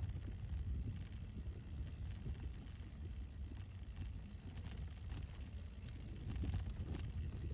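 Wind buffeting the microphone of a camera on a mountain bike being ridden, a steady low rumble with light ticks and rattles from the bike.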